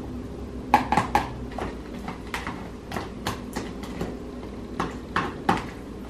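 Metal spoon clicking and scraping against a plastic container while mashing avocado: a quick, irregular run of sharp taps starting about a second in, over a low steady hum.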